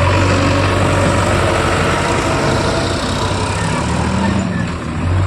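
Heavy diesel engine running steadily at a low, even drone, easing off briefly near the end.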